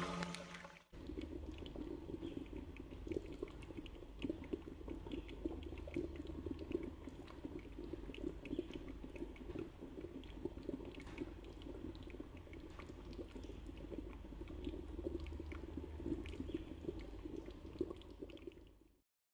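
Red fish curry simmering in a stainless steel pot, bubbling with a steady run of small pops.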